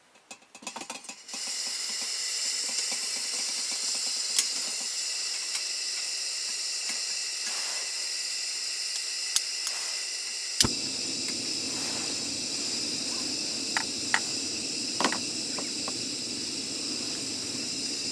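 Gas hissing steadily from the burner of an old cartridge camping stove after its valve is opened, unlit for about nine seconds. About ten and a half seconds in there is a click and the burner catches, adding a steady lower rush of flame under the kettle: it is lit by hand with a long lighter because the stove's igniter is broken. A few small clicks follow.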